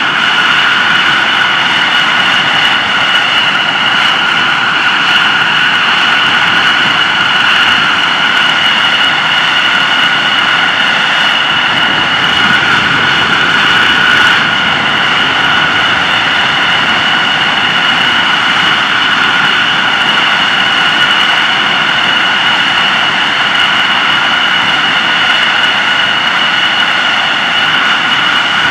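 F-16 Fighting Falcon's jet engine idling on the ground, kept running for hot-pit refueling: a loud, steady whine with two high tones over a continuous rush of engine noise.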